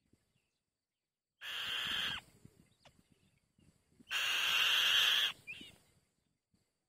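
White-tailed kite nestlings give two harsh, raspy screeches, about a second and a half in and again about four seconds in; the second is longer.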